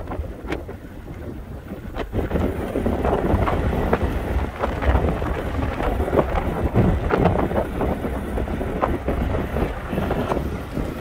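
Wind buffeting the camera's microphone on a moving car, over the rumble of tyres on the road, as the car coasts in neutral without throttle. It grows louder about two seconds in.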